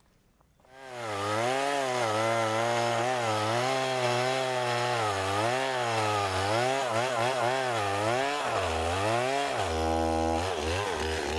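Gas chainsaw starting up about a second in and running while cutting a log, its engine speed rising and falling again and again as the chain bites into the wood, then holding steadier near the end.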